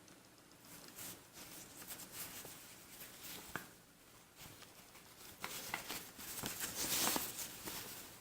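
Old paper rustling and crinkling as a WW2 German field-post envelope is handled and its letter drawn out, with small taps and scrapes; the rustling grows louder near the end.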